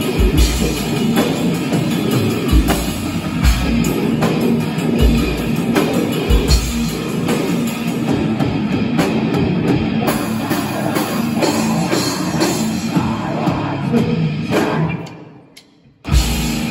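Live hardcore/metal band playing loud: distorted guitar over a drum kit, with heavy low bass-drum hits in the first several seconds. About fifteen seconds in the music dies away for a moment, then comes back in suddenly.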